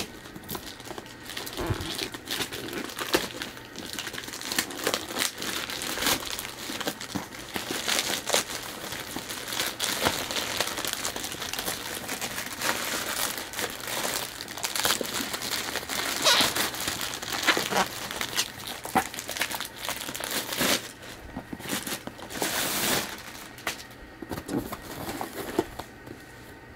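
Packaging crinkling and crackling as a cardboard subscription box is unwrapped by hand, with irregular rustles and sharper crackles, quieter near the end.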